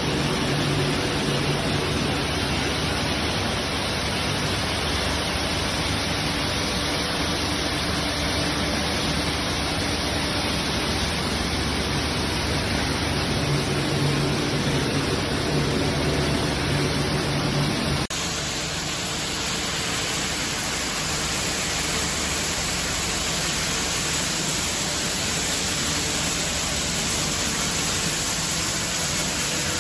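Machinery of a PET bottle washing plant running, a dense steady hiss with low hum tones. The sound changes abruptly about two-thirds of the way through to a slightly quieter noise with a different steady hum.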